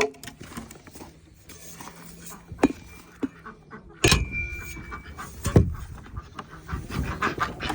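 Scattered knocks and clanks as the chicken coop is opened up, the loudest a metallic clank about four seconds in with a short ring after it.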